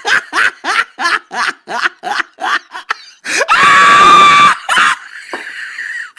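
A man laughing in rapid bursts, about five a second, for about three seconds. Then comes a long, loud, high cry lasting about a second, and one more short burst after it.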